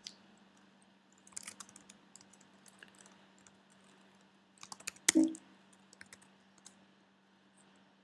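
Scattered keystrokes on a computer keyboard as shell commands are typed, with a short cluster and the loudest key press about five seconds in, over a faint steady hum.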